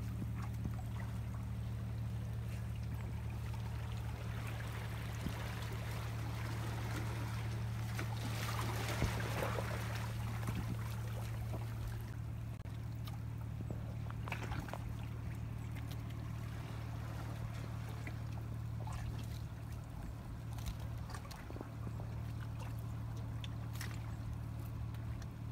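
Steady low engine hum, with seawater washing and trickling among shoreline rocks; the wash swells about nine seconds in, and a few faint clicks come through.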